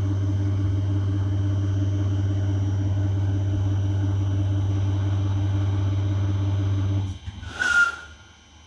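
Regional train standing with a loud, steady low hum that cuts off abruptly about seven seconds in. Right after it comes a brief loud noise with a short high squeak.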